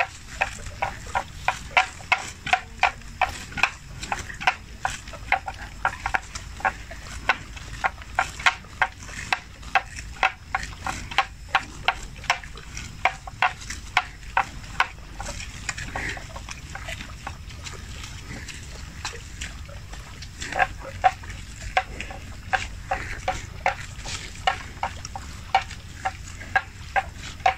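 Water buffalo grazing close by: a rhythmic run of short crunching tears as they crop grass, about two to three a second. It thins out for a few seconds midway, then picks up again.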